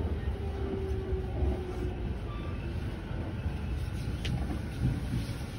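Sobu Line local commuter electric train slowing to a stop at a platform, heard from inside the car: a low rumble, with a steady motor tone that fades out in the first couple of seconds and a brief sharp click about four seconds in.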